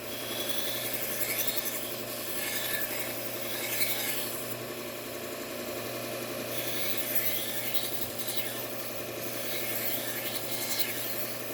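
Knife edge being reground on a Trizact abrasive belt on a Bucktool slow-speed belt grinder: a steady motor hum under a hissing rasp that swells with each pass of the blade, several times over. The knife is being resharpened because it was too dull for stropping to bring it back.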